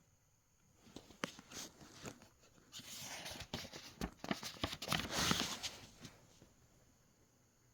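Rustling and clicking handling noise, irregular and loudest in the middle, as things are moved about by hand.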